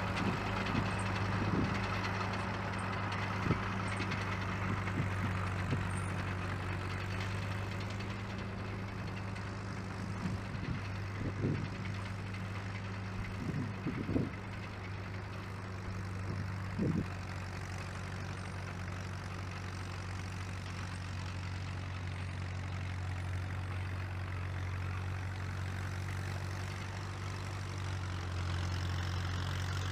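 1949 Caterpillar D2 crawler's four-cylinder diesel engine running steadily and evenly, as it should, while the crawler drives, with a few short knocks in the first half. Past halfway the engine note shifts slightly, and it grows a little louder near the end.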